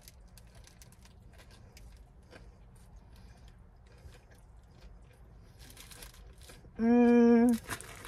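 Soft chewing of a cheeseburger and the crinkling of its paper wrapper as it is folded back around the burger. About seven seconds in comes a short, steady closed-mouth "mmm" of approval, lasting under a second, which is the loudest sound.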